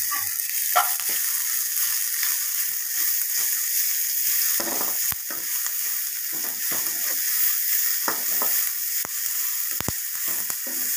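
Chopped onion and grated carrot sizzling in hot oil in a kadai, with a steady hiss, while a steel spoon stirs them and scrapes and clicks against the pan many times.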